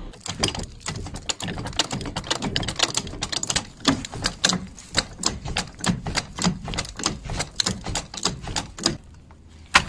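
Rapid, uneven clicking from hand tools at work on the car, about four or five clicks a second, stopping about a second before the end.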